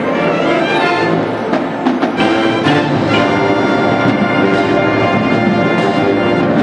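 Marching band playing, brass holding sustained chords over the drums, with a few sharp drum hits about two seconds in.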